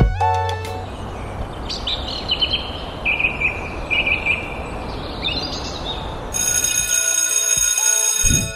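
Outdoor ambience with a steady hiss and birds chirping. About six seconds in, a school bell starts ringing and keeps ringing until shortly before the end.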